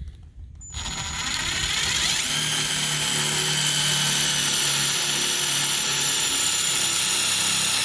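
Power drill starting about a second in and running steadily under load, boring into metal.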